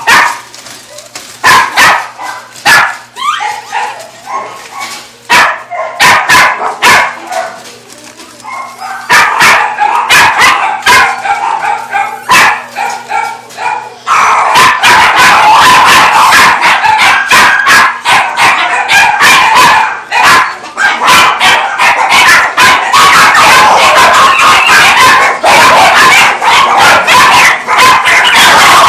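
Many shelter dogs barking. Through the first half the barks come singly and in scattered bursts. About halfway in, the sound jumps abruptly to a loud, dense din of many dogs barking and yelping at once.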